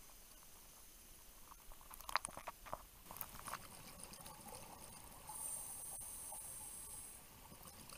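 Underwater sound on a scuba dive: a cluster of sharp clicks and crackles about two seconds in, then a steady high hiss for about two seconds, like a diver's regulator on the in-breath.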